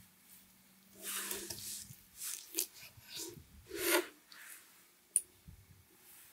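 Large knife cutting through a grilled lamb rib steak on a wooden board: several short rasping strokes through the crust, then a single sharp click a little after five seconds in.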